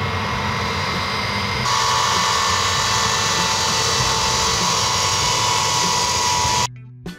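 Xian Y-20's four turbofan engines running on the ground: a steady jet whine over a rushing noise. About two seconds in it jumps louder and hissier. Near the end it cuts off suddenly and a few light musical notes begin.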